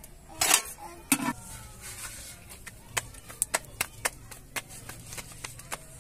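Roti dough being slapped back and forth between bare palms to flatten it by hand: short, sharp pats, two or three a second, from about two and a half seconds in. Two louder sounds come about half a second and a second in.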